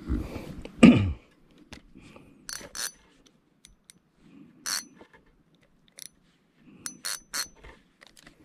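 Fishing tackle being handled in a boat: dull bumps in the first second, then sharp metallic clinks and clicks, a pair about two and a half seconds in, one near five seconds and three in quick succession around seven seconds, as the jigging rod, reel and metal jig are set up.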